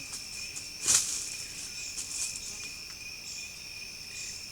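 Steady chorus of rainforest insects: two high, unbroken buzzing tones. One short, louder noise stands out about a second in.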